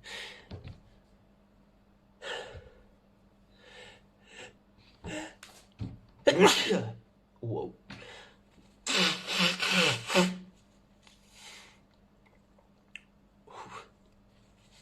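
A run of sneezes, about ten short bursts spread over the stretch. The loudest comes about six and a half seconds in, and a quick cluster follows around nine to ten seconds. A faint steady hum runs underneath.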